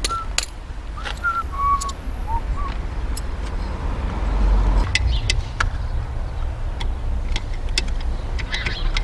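A few whistled notes, then scattered light metallic clicks and taps as a new car battery is set into its tray and its terminals and hold-down are handled, over a steady low rumble.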